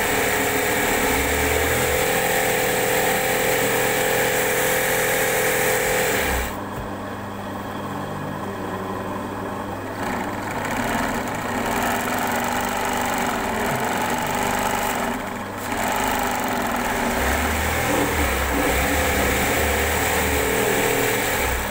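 Electric sewing machine running steadily, stitching free-motion embroidery on fabric held in a hoop. It drops quieter for a few seconds about a third of the way in, and dips again briefly past the middle.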